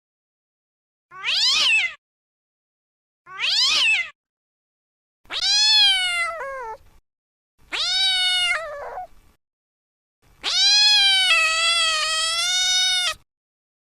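A cat meowing five times: two short identical meows, two longer meows that drop in pitch at the end, then one long drawn-out meow of about three seconds near the end.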